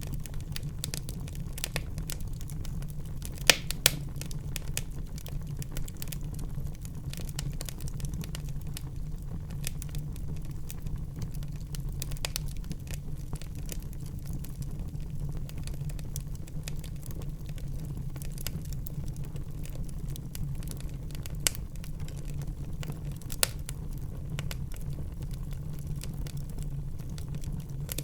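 Wood fire burning in a fireplace: a steady low rumble of the flames with frequent small crackles and a few louder pops, two close together a few seconds in and two more near the end.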